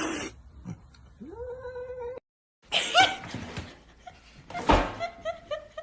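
Cats meowing and yowling: a long, drawn-out meow in the first two seconds, then, after a brief silent gap, loud yowls and a quick run of short mews near the end.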